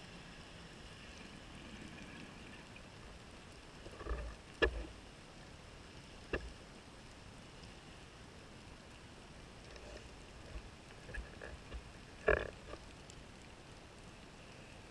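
Underwater sound picked up by a diving camera: a faint steady hiss and hum that fades in the first few seconds, then a handful of short knocks and gurgles, the loudest about four and a half and twelve seconds in.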